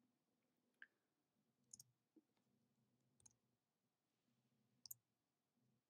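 Four faint computer mouse and keyboard clicks spaced about a second apart, two of them quick double clicks, over a very quiet room.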